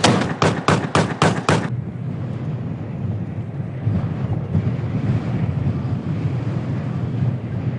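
A rapid run of evenly spaced bangs, about four a second, stops short a couple of seconds in; it is followed by a steady low rumble of tracked armoured vehicles on the move, with wind on the microphone.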